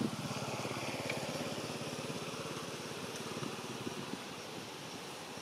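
A small engine running with a rapid, even pulse, fading after about three and a half seconds.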